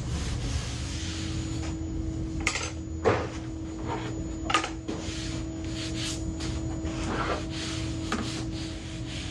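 Hands rubbing and pressing thin walnut veneer down onto a contact-cemented plywood panel, with several light wooden clatters as thin spacer sticks are pulled out and dropped on a plywood board. A steady fan hum runs underneath.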